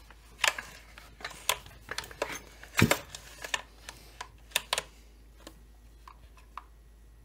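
Hands handling the plastic housing of a Holzfforma G388 chainsaw and working a small black latch on its side: a run of plastic clicks and knocks, the loudest a thump just under three seconds in, tailing off into a few faint ticks.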